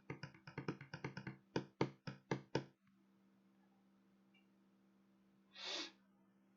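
Tarot cards being handled on a table: a quick run of clicks, then about five sharper knocks that stop just under three seconds in. A single short rustle comes near the end.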